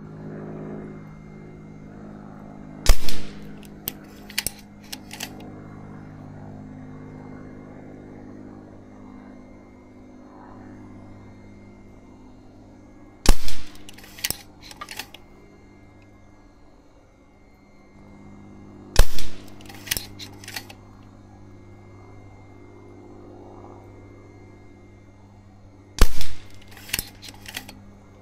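Karma Airguns SLS .25 caliber pre-charged pneumatic air rifle firing four single shots several seconds apart. Each sharp report is followed by a few smaller clicks.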